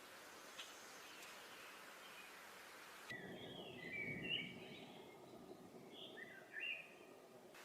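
Faint songbird chirps: a run of short, quick calls from about three seconds in until near the end, over a soft steady hiss.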